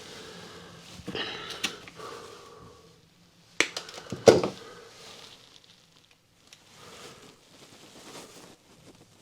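Handling noise of hands working with tools and fittings: clicks and rustling, then two sharp knocks under a second apart about three and a half seconds in, followed by quieter shuffling.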